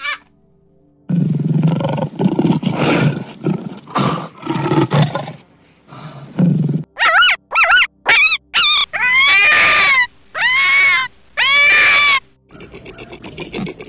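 A crow's short caw, then a snow leopard growling in a run of rough bursts. Next come a series of high, arching wailing calls, four short and then three longer ones. Near the end a quick pulsing chatter begins.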